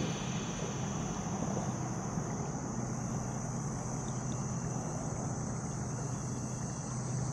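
Steady outdoor river ambience: a low, even rushing noise of wind and water, with a faint, steady high insect buzz.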